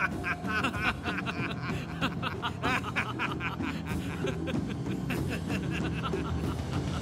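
Men laughing heartily in quick, choppy bursts over soft background music.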